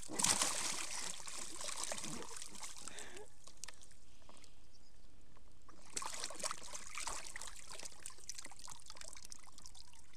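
Shallow water splashing and sloshing in a small plastic paddling pool as a toddler steps and crawls about in it, louder in the first second and again about six seconds in.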